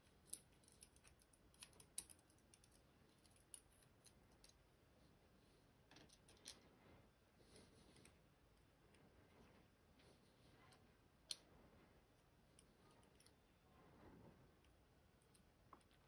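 Faint, scattered small metallic clicks of steel tweezers working pins out of the chambers of a brass pin-tumbler lock cylinder, the sharpest about eleven seconds in.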